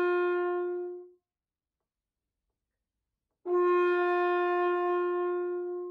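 French horn holding long sustained notes at one pitch: a note dies away about a second in, and after a gap of silence the same note starts again about three and a half seconds in and is held on.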